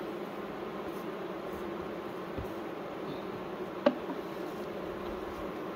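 Honeybees from an opened hive buzzing steadily, a continuous drone. One sharp click comes about four seconds in.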